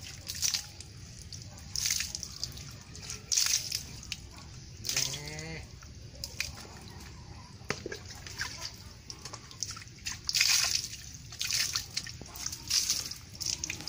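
A mare being milked by hand: short spurts of milk squirting into a plastic bowl, coming irregularly about once every second or so.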